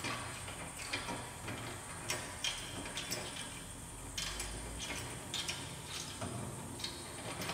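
Faint scattered clicks and light metal rattles of a bolt and washers being turned by hand up through a mirror bar tube into a truck mirror, over a steady background hiss.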